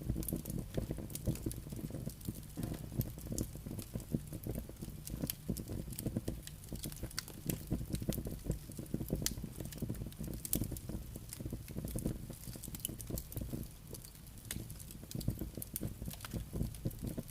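Campfire burning, with frequent sharp crackles and pops over a steady low rumble of flames and wind.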